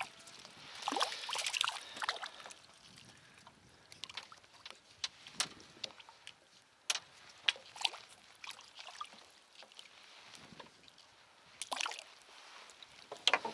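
Light water splashing and trickling for the first couple of seconds, then scattered sharp clicks and knocks as fishing tackle is handled aboard a small boat.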